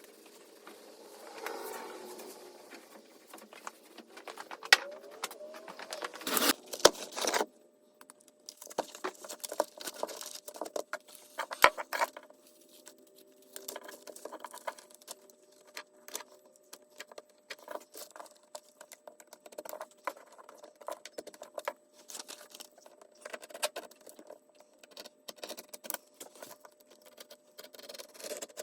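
Yellow headlight tint film being handled by hand, making irregular small clicks and crinkling rustles, with a louder stretch of rustling about six to seven seconds in. A faint steady hum runs underneath.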